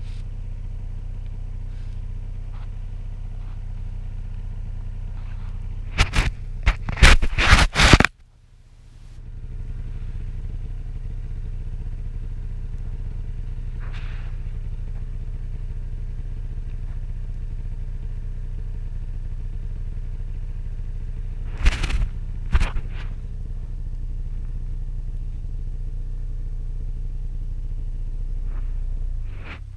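Arctic Cat Crossfire 600 snowmobile's two-stroke engine running steadily, with a cluster of loud knocks and rattles about six to eight seconds in. The engine then drops away briefly and builds back up. A shorter burst of knocks comes a little after twenty seconds, and the engine dies away near the end.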